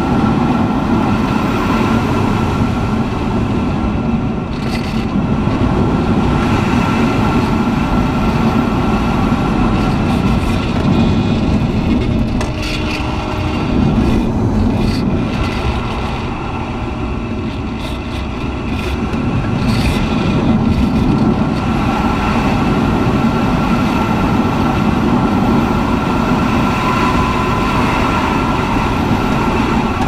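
Air rushing over the canopy and airframe of a Swift S-1 aerobatic glider during aerobatic manoeuvres, rising and falling with airspeed. It eases off for a few seconds past the middle, then builds again.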